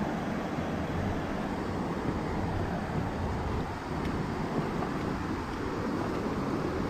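Steady rushing noise of wind buffeting the microphone, mixed with the flow of a river.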